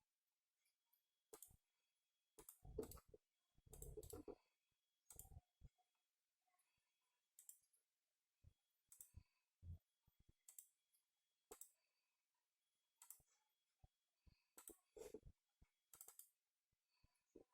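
Faint, irregular computer mouse clicks and keystrokes, with a couple of heavier knocks around 3 and 4 seconds in.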